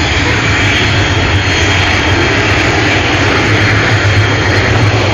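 Jet engines of small red-and-white jet trainers running loud and steady as the aircraft taxi on the runway.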